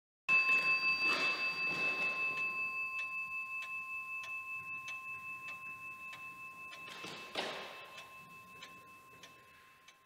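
Antique Lepaute pendulum clock striking once on its bell, the note ringing on and slowly fading, with the clock's regular ticking beneath it. There is a second, softer knock about seven seconds in.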